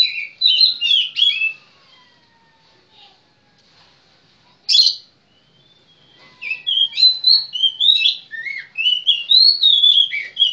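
Magpie-robin (kacer) singing: a quick phrase of varied whistled notes at the start, a single sharp note about five seconds in, then a longer run of varied, quickly changing whistles over the last four seconds. Fainter long, slowly falling whistles sound beneath the phrases.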